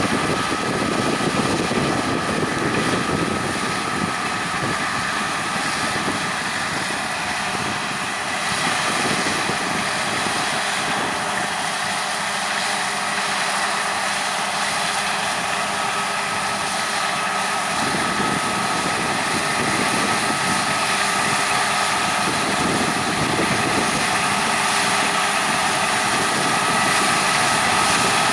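Combine harvester running steadily while harvesting, a constant high whine over its broad mechanical noise.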